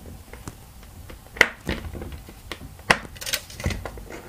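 Clicks and taps of a metal tape measure handled against a whiteboard, with two sharp clicks about a second and a half apart and lighter ticks between.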